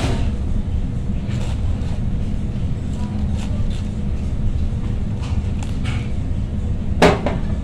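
Large chef's knife cutting through a head of cabbage, with a few short cutting and knocking sounds against the cutting board; the loudest knock comes near the end. A steady low rumble runs underneath.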